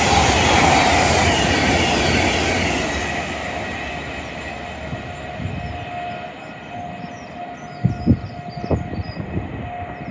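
A train passing through the station at speed, its rushing noise loud at first and fading away over the first few seconds as it recedes. A faint steady tone lingers after it, birds chirp, and a few low thumps come near the end.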